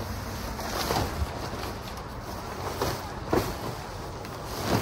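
Synthetic tent rainfly rustling and swishing as it is bunched and lifted by hand, with several louder swishes, over a steady rush of wind on the microphone.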